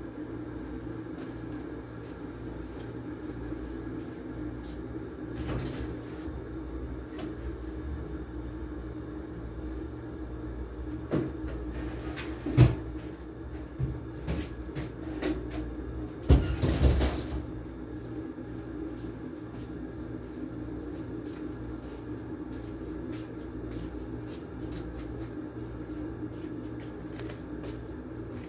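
Steady hum of a window air conditioner running, with a handful of knocks and clunks around the middle, the loudest two a few seconds apart.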